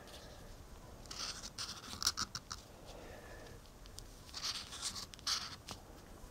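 Sharpie felt-tip marker writing numbers on a sheet of paper: faint short strokes of the tip, in two spells, about a second in and again around four and a half seconds in.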